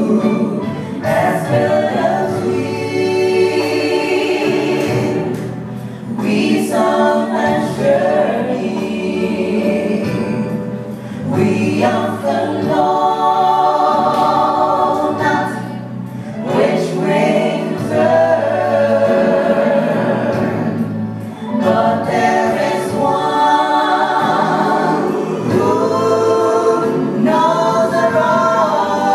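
A small gospel vocal group of one man and two women singing together into handheld microphones, in phrases a few seconds long with short breaths between.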